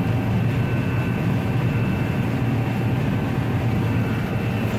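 John Deere 9750 combine running steadily while cutting wheat, heard from inside the cab: an even low drone with faint steady high whines, the machine running normally.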